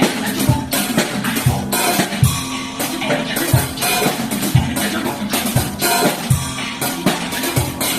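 Cowbell struck with bamboo rod brush sticks, with cajon bass strokes and hi-hat, played along to a recorded song with a steady beat.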